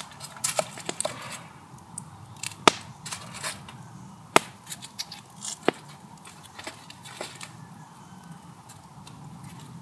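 Knife cutting a raw potato into chunks in the hand over tin foil, with a few sharp clicks a second or two apart.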